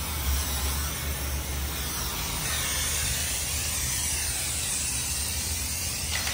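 Aerosol spray-paint can spraying in a continuous hiss, its tone wavering as the can is swept across the surface, over a steady low hum.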